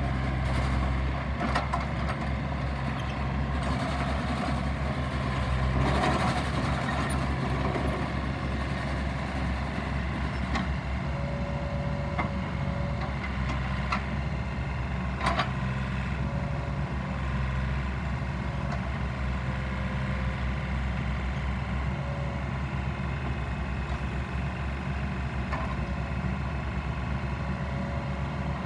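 Komatsu PC38 mini excavator's diesel engine running steadily under load as its hydraulics work the arm and bucket in a gravel pile, with a handful of short knocks and clanks from the bucket and gravel. A faint whine comes and goes in the second half.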